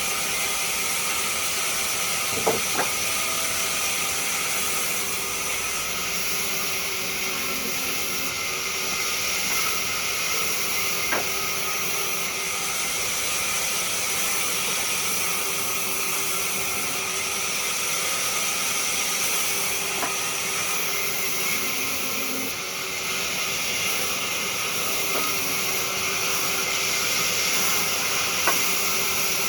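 Wood lathe running, with a steady hiss of a turning tool cutting the spinning wood over a steady motor hum, and a few sharp clicks.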